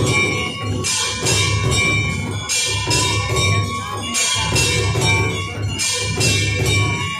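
Rhythmic devotional music with jingling, bell-like percussion over a low pulsing beat and a faint steady drone.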